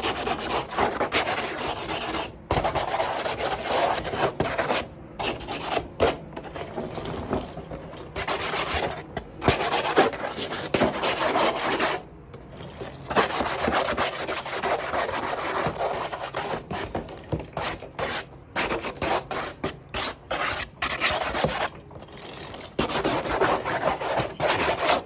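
Wire brush scrubbing a bare car headliner board in quick back-and-forth strokes, scraping off old glue and the residue of the old fabric. The scraping comes in runs that stop briefly now and then.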